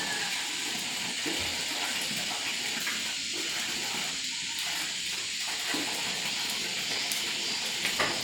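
Water running steadily in a continuous, even rush, like a tap or hose pouring.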